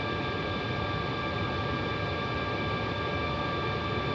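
Steady cockpit noise of an Airbus A321neo on short final: an even rush of airflow and engine noise, with several faint steady high whining tones.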